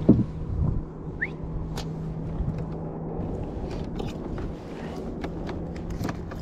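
Steady low hum of a Minn Kota bow-mounted electric trolling motor, with scattered clicks and knocks as a crappie is unhooked and handled. A single knock just after the start is the loudest sound.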